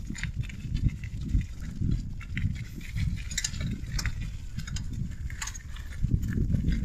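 Wind buffeting the microphone of a moving bicycle, a gusty low rumble, with irregular clicks and rattles from the bicycle rolling over a rough dirt track.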